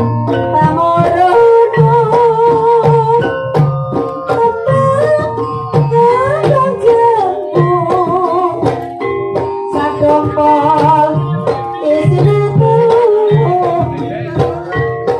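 Gamelan music accompanying an ebeg horse-trance dance: steady hand-drum strokes and struck tuned percussion under a wavering sung melody.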